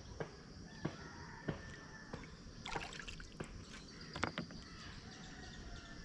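Quiet riverside background with a scatter of light taps and drips as a fishing handline and its stone weight are hauled into a canoe, and faint bird calls.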